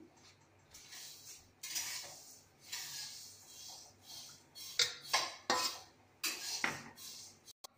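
Hand mixing and kneading crumbly milk-powder gulab jamun dough in a stainless steel plate, fingers scraping and rubbing against the steel in irregular strokes. A few sharper knocks come in the second half.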